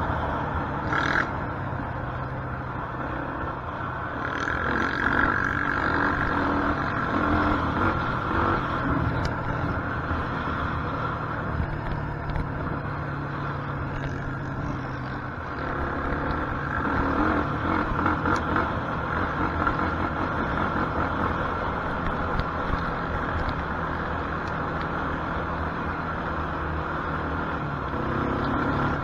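Quad bike (ATV) engine running steadily as heard from on board while riding, its note shifting with the throttle, over wind and tyre noise.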